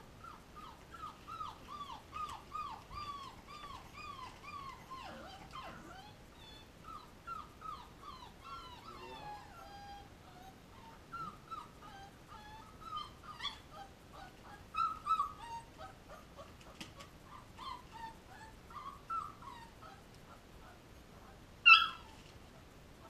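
Young puppies whining and whimpering, a steady run of short cries that fall in pitch. One puppy gives a much louder, sharp yelp near the end.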